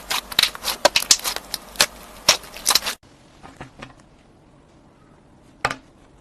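Slime being squished and poked, giving a quick run of sharp crackling clicks and pops. About halfway through it cuts abruptly to a quieter stretch with a few soft clicks and one louder pop near the end.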